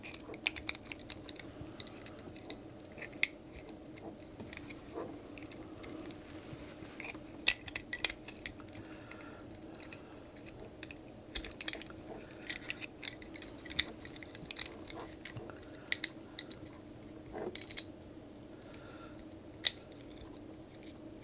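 Scattered light clicks, taps and scrapes of a plastic Wi-Fi antenna housing and its cables being handled while the cables are threaded through its grooves, over a steady low hum.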